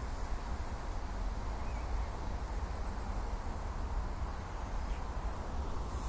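Steady outdoor background noise with a fluctuating low rumble, no distinct event standing out.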